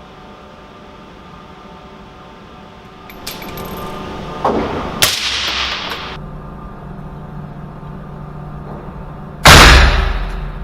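Two suppressed .308 rifle shots from a bolt-action Savage Model 110 fitted with a TX Silencer Co. Hunter suppressor: a sharp report about five seconds in and a louder one near the end, each dying away over about a second.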